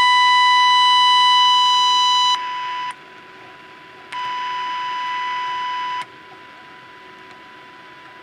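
Steady beep-like test tone from a transistor radio's speaker, the modulation tone of a 455 kHz signal-generator signal fed into the set for IF alignment. The tone drops a little about two seconds in, cuts out, comes back about four seconds in, and falls to a faint tone about six seconds in.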